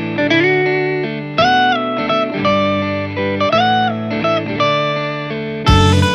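Background music: an electric guitar plays a melody with bent notes. A fuller band with drum hits comes in near the end.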